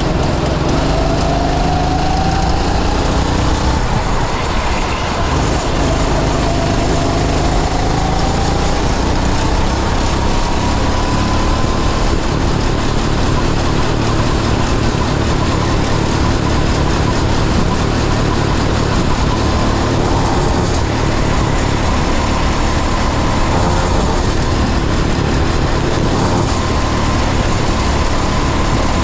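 Go-kart engine heard from a camera on the kart, running hard: its pitch climbs twice as the kart accelerates, then holds high and steady.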